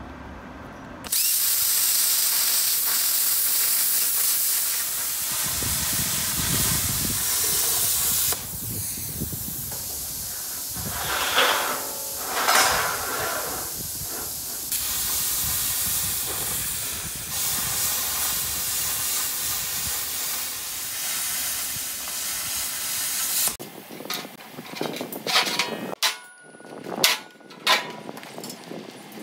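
Handheld plasma cutter (UniMig Razorcut 45) cutting high-tensile steel plate: a loud, steady hiss of the air and arc. It stops about 23 seconds in, followed by a few sharp clicks and knocks.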